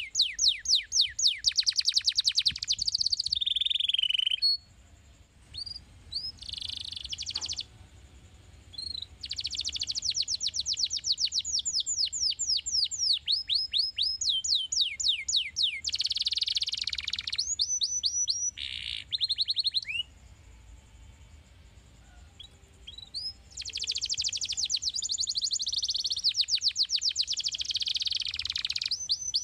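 Domestic canary singing: long phrases of fast trills, each made of rapidly repeated notes sweeping downward, broken by a couple of pauses of a few seconds.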